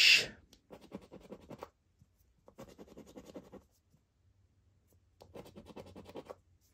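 A coin scratching the latex coating off the letter spaces of a Triple Cashword scratchcard, in three short bursts of rapid scraping strokes with pauses between.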